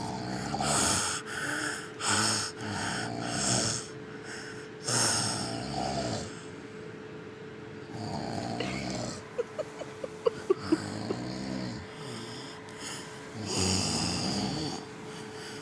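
Young child imitating a man's snoring: a quick string of short, rasping snore sounds, then longer drawn-out snores with pauses between them. A brief run of sharp clicks comes about ten seconds in.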